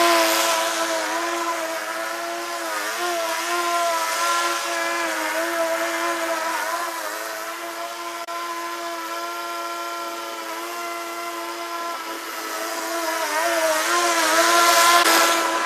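Gas engine of a 25-inch YBravo walk-behind mower running steadily while mowing, its pitch dipping briefly a few times as it takes load, and growing louder near the end.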